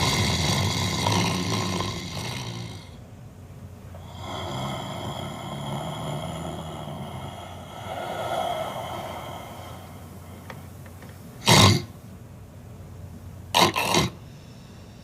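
A man snoring heavily, with long drawn-out snores. Then come three short, loud snorts in the last few seconds, two of them close together; these are the loudest sounds.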